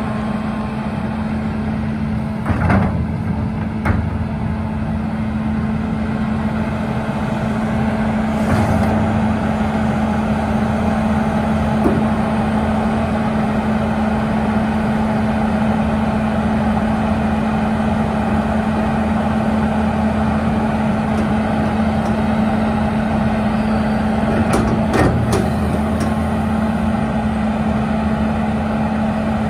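A 2003 John Deere 330C LC hydraulic excavator's diesel engine running with a steady hum as the boom, arm and bucket are worked, getting a little louder about eight seconds in. A few short knocks from the machine come a few seconds in and again near the end.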